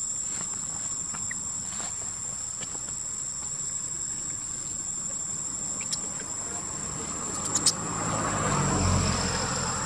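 Steady high-pitched drone of insects, with a few sharp clicks and a low rumble that swells and eases near the end.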